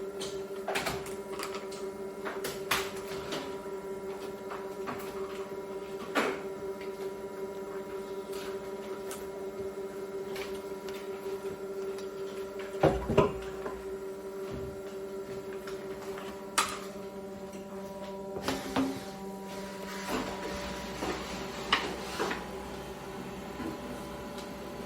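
Steady electric machine hum with scattered clicks and knocks, and a heavier clunk about halfway through.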